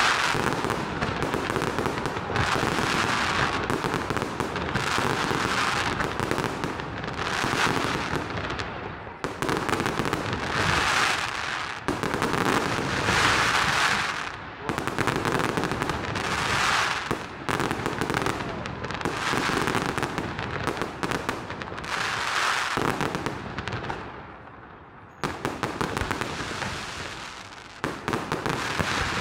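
Fireworks display going off: a dense, near-continuous run of bangs and crackling, easing off briefly about three-quarters of the way through before starting up again.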